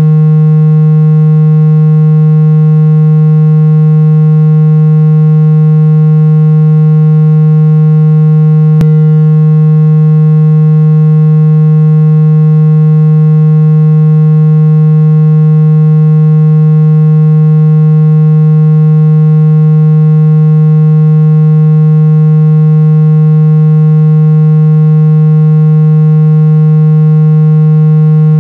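Synthesized water-eject tone for clearing water from a phone speaker: one loud, low, buzzy tone that holds the same pitch without a break, with a faint click about nine seconds in.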